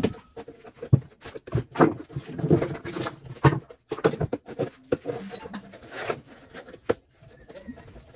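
Screen spline roller run along a window-screen frame, pressing the spline cord and mesh into the groove. It makes irregular short clicks and taps.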